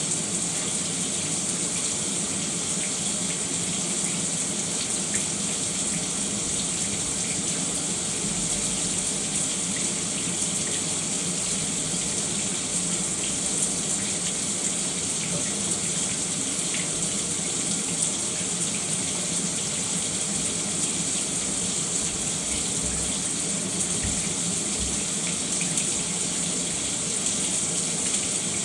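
Shower running steadily, water spraying and splashing with small scattered drips and ticks.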